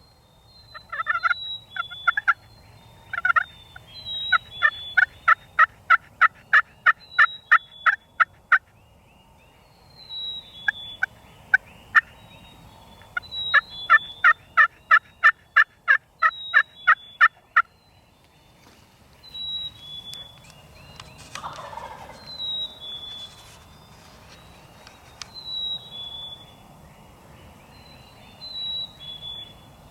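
Wild turkey yelping in two long runs of about three to four yelps a second, then a single lower, falling call about two-thirds of the way through. A songbird repeats short high notes throughout.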